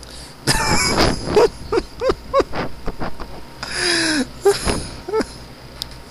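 A person laughing hard. Breathy, hissing bursts come about half a second in and again near the middle, the second with a falling squeak. Between and after them is a run of short, high-pitched laughs about three a second.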